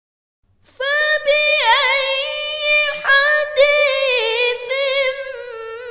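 A woman reciting the Quran in melodic tajweed chant, one unaccompanied voice. After a short silence at the start she sings long held notes with wavering ornaments, her pitch sinking lower near the end.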